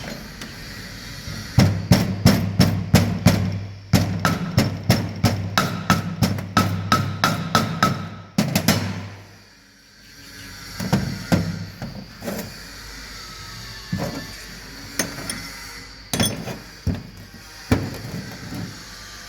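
Hammer blows on metal during a front wheel bearing job: a fast run of ringing strikes, about three a second, stops after several seconds, then a few scattered single knocks.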